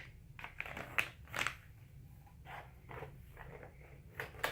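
Packaging and items being handled: a series of short, quiet rustles, crinkles and light clicks, with a louder rustle about a second in and another near the end.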